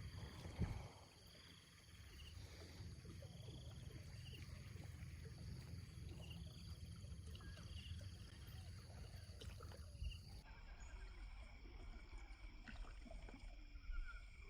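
Faint outdoor background: a steady low rumble with faint, short high chirps repeating now and then, and a few soft clicks.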